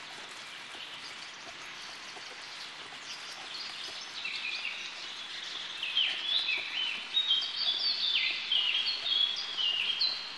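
A songbird singing a rapid series of short, stepped whistled notes, faint at first and loudest in the second half, over a steady outdoor hiss.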